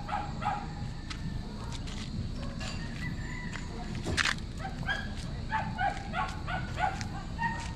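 Short animal calls repeated many times, more of them in the second half, over a steady low rumble. A single sharp crack about four seconds in.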